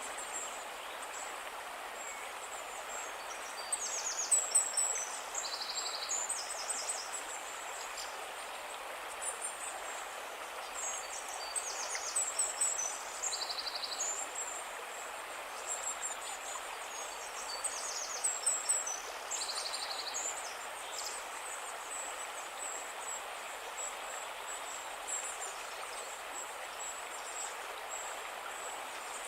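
A calm river flowing with a steady rush of water. A small songbird sings high, quick trilled phrases over it in three bursts, about 4, 11 and 18 seconds in.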